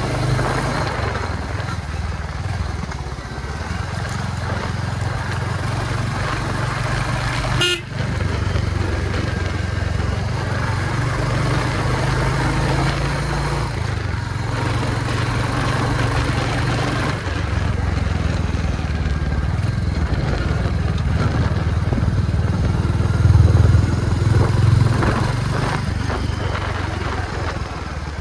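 Motorcycle running under way, a steady low engine drone mixed with road and wind noise, with a brief break about eight seconds in.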